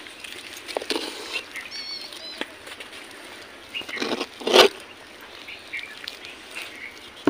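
Metal spoon scooping and scraping thick steamed rice-flour dough in a steel pot, with small clicks and one louder scrape or knock about four and a half seconds in. A bird chirps briefly about two seconds in.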